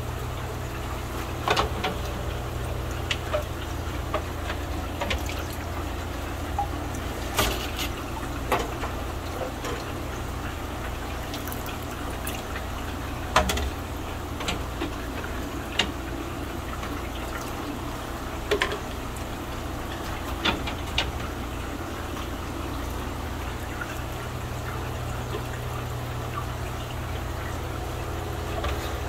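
Aquarium water bubbling and splashing over a steady low hum, with scattered short splashes and knocks as a fish net is dipped into the tanks and glass lids are handled.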